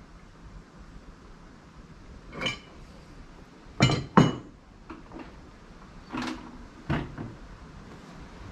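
Steel tow-bar and frame tubes of a broadcast spreader knocking and clanking as they are handled and laid on a workbench: about half a dozen knocks, the loudest a quick pair about four seconds in.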